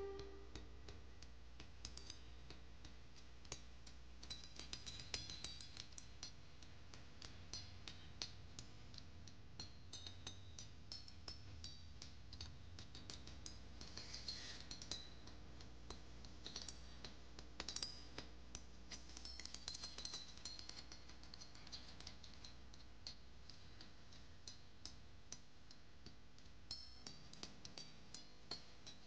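Faint scattered clicking over a low hum, with occasional faint high chirps.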